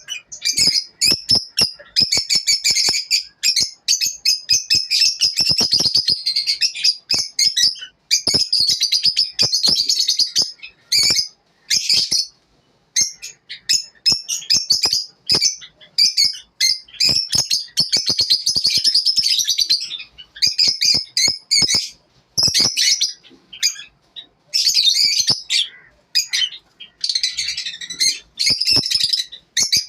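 Lovebirds chirping and twittering in rapid, dense runs of high calls, with a few short pauses.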